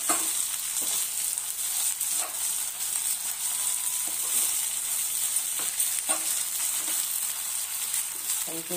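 Gongura and spinach leaves with dried red chillies and garlic sizzling in oil in a nonstick pan, stirred with a metal spoon: a steady high hiss with occasional light spoon scrapes.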